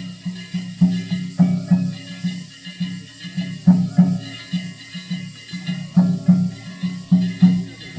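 Gion festival hayashi from a float: a drum beaten in a fast, even rhythm, with faint metallic jingling and ringing above it.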